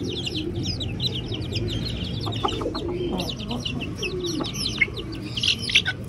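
A flock of young chickens feeding: constant high peeping and chirping over lower clucks. A few sharp taps stand out near the end.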